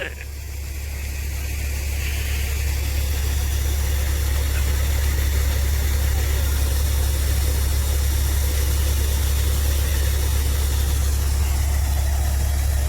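A vehicle engine running steadily with a deep, even hum. It grows louder over the first couple of seconds, then holds level.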